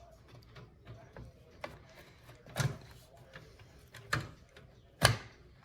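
A few sharp clicks and knocks as a graphics card is pushed into the PCIe slot of a PC case, the loudest three near the middle and toward the end.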